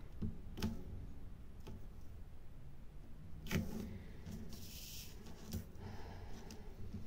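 Faint, irregular clicks of a diamond-painting drill pen tapping resin drills onto the sticky canvas, with a brief rustle about five seconds in, over a low steady hum.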